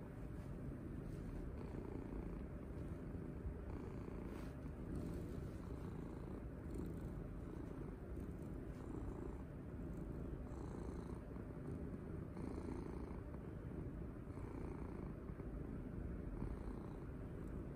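Domestic cat purring loudly and continuously while being petted, a low rumble that swells and eases with each breath, about every two seconds.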